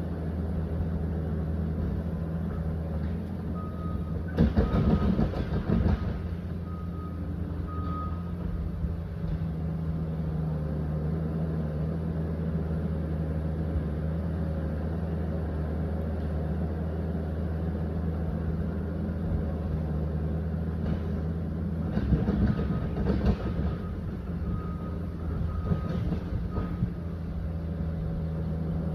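Liebherr 744 crawler dozer's diesel engine running steadily under work. Its reversing alarm beeps at intervals twice, about 4 s in and again about 22 s in, each time with a louder stretch of clatter.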